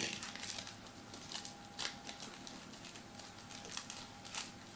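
Foil wrapper of a trading-card pack crinkling as it is torn open by hand, in short, faint, irregular crackles.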